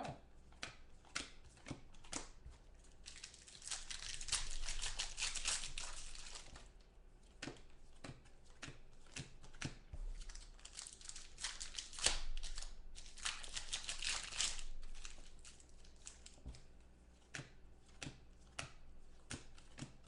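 Trading-card pack wrappers being torn open and crinkled in two longer spells, with sharp clicks from cards being handled in between.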